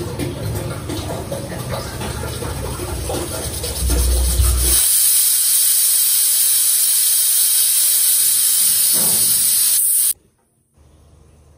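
Kitchen clatter, then a loud, steady hiss from cooking on the stove starts about four seconds in and cuts off suddenly near the end.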